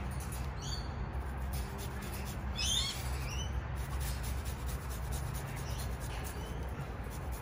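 Garlic cloves being grated on a fine metal rasp grater, a soft repeated scraping. A bird chirps over it, briefly about a second in and again in a longer run of high chirps around three seconds in.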